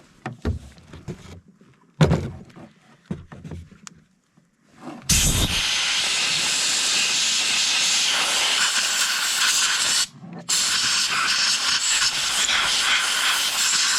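Compressed air blowing sawdust out of a reassembled chainsaw: a loud, steady hiss that starts about five seconds in and stops briefly about ten seconds in. Before it, a few light knocks from handling the saw.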